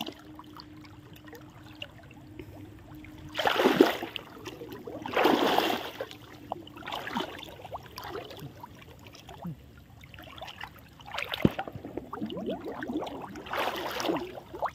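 Shallow water splashing and sloshing in several bursts a second or two apart, as a cast net is worked and hauled in a muddy canal.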